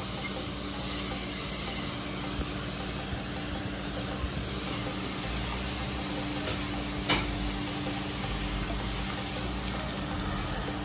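Steady stovetop hiss with a faint low hum from a gas stove, as grated bottle gourd heats in a nonstick saucepan, with one light click about seven seconds in.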